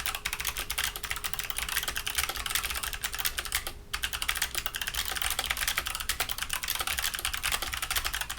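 Mechanical keyboard with clicky switches clicking rapidly and densely, like fast typing, with one short break a little under four seconds in.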